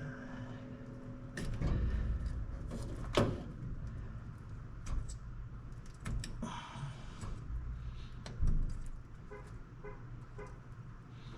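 Scattered clicks, taps and knocks from hands and tools working a wire terminal into a truck's wiring bulkhead connector, over a low rumble, with the loudest knocks about three seconds in and again near eight and a half seconds.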